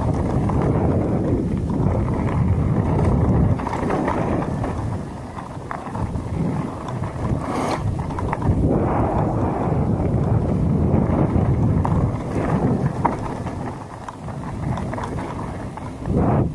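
Wind buffeting the microphone of a bike-mounted action camera over the rumble and rattle of a mountain bike's tyres rolling downhill on loose gravel and dirt. A single sharp knock comes a little before the middle.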